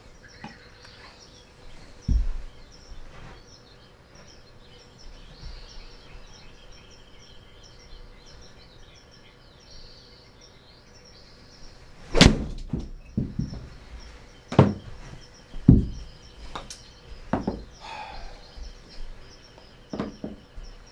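Golf shot in an indoor simulator: an 8-iron strikes a Titleist Pro V1 ball off the hitting mat with a sharp crack about twelve seconds in, followed by a string of knocks and thumps. A single thump comes about two seconds in.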